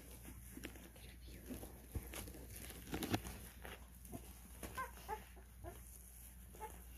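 Faint squeaks and whimpers from a pile of 12-day-old Cane Corso puppies, with a few short, high squeaks about five seconds in, among soft rustling and small clicks as they squirm together.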